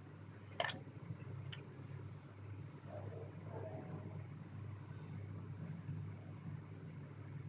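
A cricket chirping steadily in short even pulses, about four or five a second, over a low steady hum. Two light clicks sound about half a second and a second and a half in.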